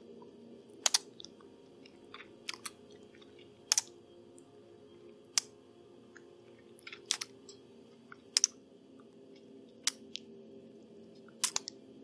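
Close-miked wet mouth sounds of a vampire feeding at the neck: sharp sucking clicks and smacks, irregular, roughly one a second, over a faint steady low hum.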